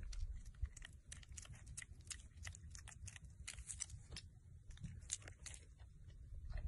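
A piglet chewing and smacking its mouth, heard as faint, irregular little crunches and clicks.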